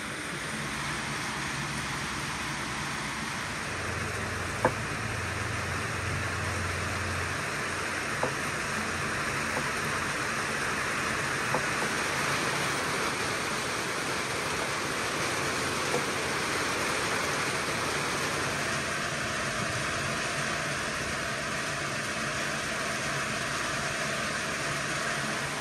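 Steady rain falling, with a few sharp knocks of a knife on a wooden cutting board and a brief low hum a few seconds in.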